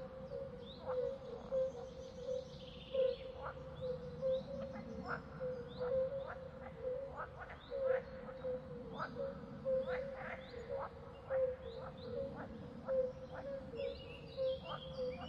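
Forest animal calls: a steady, pulsing call held at one pitch, crossed by short rising chirps about once or twice a second, with clusters of higher bird notes near the start and near the end.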